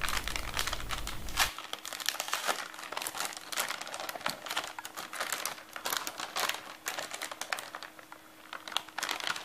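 Anti-static plastic bag around a graphics card crinkling as it is handled and opened: a dense run of irregular crackles that thins out near the end.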